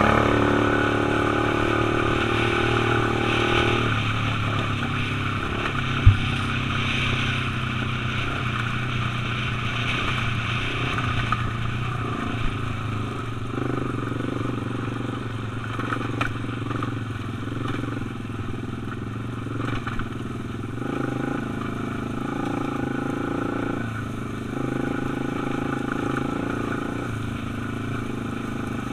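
Quad (ATV) engine running while riding over a rough grass trail, its note shifting a few times with the throttle. A single sharp knock about six seconds in.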